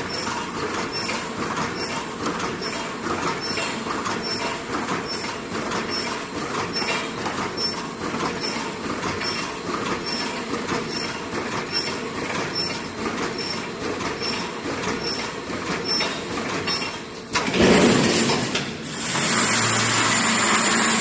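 Automatic wire mesh welding machine running, with a steady mechanical noise and an even clacking about twice a second. About four seconds before the end a sudden, louder and different noise takes over.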